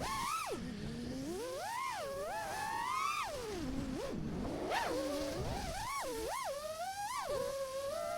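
FPV freestyle quadcopter's brushless motors whining, the pitch sweeping up and down constantly with the throttle. The pitch drops low briefly about four seconds in, then climbs again.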